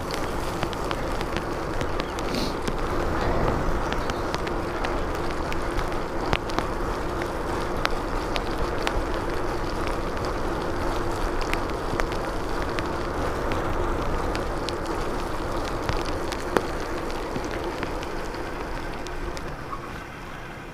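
Bicycle tyres hissing along rain-soaked asphalt as the 1997 Giant Iguana is ridden, with wind rushing over the microphone. A faint steady hum runs underneath, and scattered small clicks and ticks come from the bike.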